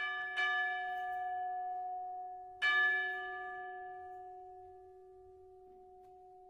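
A bell struck three times, twice in quick succession at the start and again about two and a half seconds in, each stroke ringing on and slowly fading over a steady held tone.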